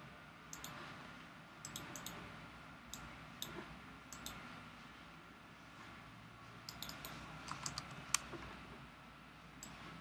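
Computer keyboard and mouse clicks, faint: scattered single clicks, then a quick run of keystrokes about two-thirds of the way through.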